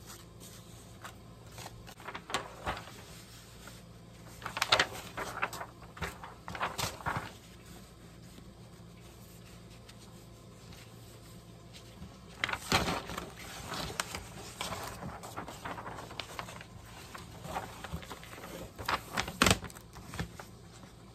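Large sheets of paper and card being handled and shifted on a cutting mat: crisp rustles and light taps in several clusters, about five seconds in, around thirteen seconds in, and near the end.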